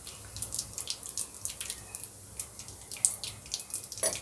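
Cumin seeds, carom seeds (ajwain) and bay leaves crackling and spitting in hot oil in a frying pan, irregular sharp pops several a second: the spices being tempered before the masala paste goes in. A single knock near the end.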